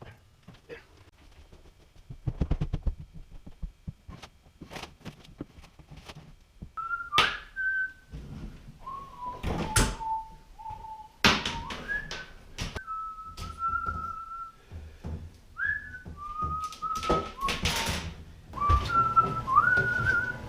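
A person whistling a tune in held notes with quick slides between them, starting about a third of the way in, over scattered sharp knocks and thuds.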